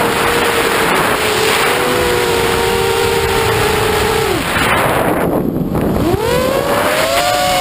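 Electric motors and propellers of an FPV quadcopter, whining as heard from its onboard camera with wind rushing over the microphone. The whine holds a steady pitch, drops away about four seconds in as the throttle comes off, then climbs sharply back up a second and a half later.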